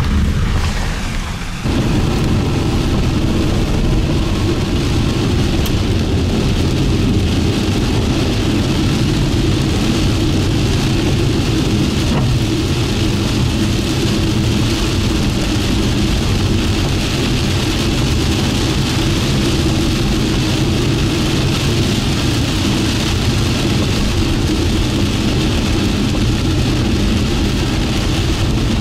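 Rain drumming on a car's windshield and roof, over steady road and engine noise, heard from inside the moving vehicle.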